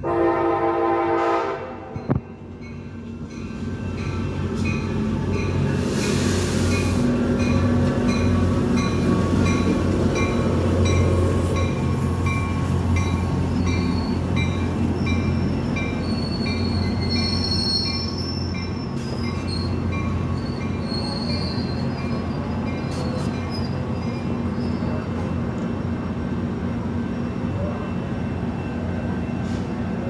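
Passenger train arriving at a station: a short horn blast right at the start, then the rumble of its bilevel cars rolling in and high brake squeals between about 17 and 22 seconds in as it comes to a stop. The locomotive's diesel engine keeps running steadily after the stop.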